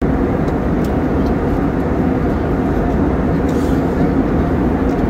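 Jet airliner cabin noise in cruise flight: the steady, even noise of the turbofan engines and the air rushing past the fuselage, with a low hum underneath.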